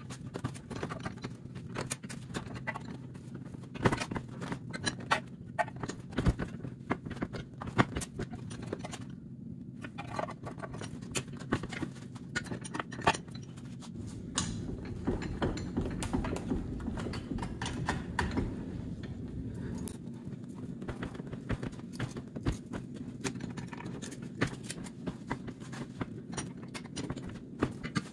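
Irregular metal clinks, clanks and crunches as brass radiator end tanks are crushed and folded in a steel bench vise, with a few sharper, louder clanks among them, over a steady low hum.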